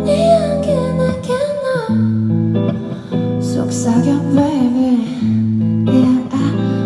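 Live music: strummed guitar chords, with a singer's voice gliding through held notes over them.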